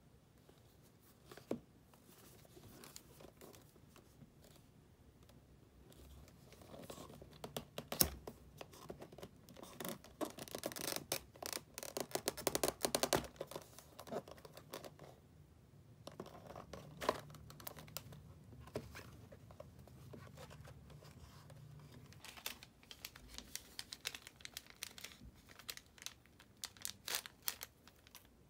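Cardboard tea box being handled and opened, with paper scraping and rustling and light taps, busiest in the middle; near the end, paper teabag sachets rustle in the hands.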